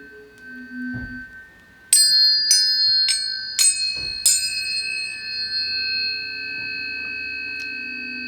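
Tuning forks ringing as steady pure tones, with a soft low knock about a second in. Then five bright metallic bell-like strikes about half a second apart, starting about two seconds in, whose high tones ring on with the forks.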